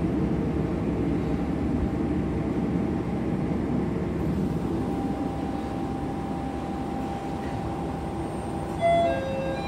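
Railcar running noise heard from inside the passenger cabin, a steady rumble that slowly gets quieter. A faint steady whine joins it about halfway through, and near the end a short two-note electronic chime sounds, high then low.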